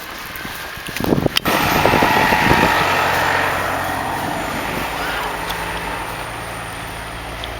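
Road traffic in the street: a vehicle goes by with a rush of tyre and engine noise that slowly fades, then a large engine runs with a steady low hum. A single sharp knock comes about a second and a half in.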